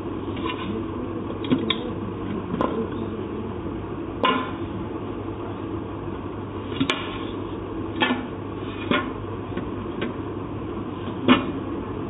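Scattered metallic clicks and knocks, about eight of them at irregular moments, from hands working the exposed mechanism of a typewriter with its casing off, the loudest one near the end, over a steady background hum.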